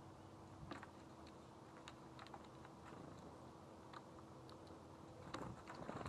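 Faint, irregular light clicks and ticks, a dozen or so scattered across a few seconds and coming closer together near the end, over a quiet background with a faint steady hum.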